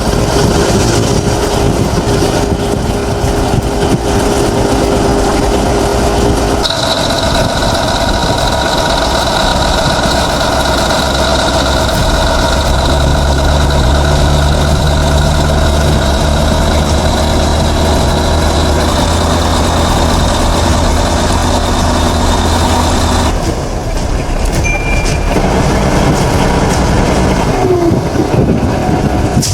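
Heavy diesel machinery engines running steadily at a loud, even level. The engine note changes abruptly about seven seconds in and again about 23 seconds in.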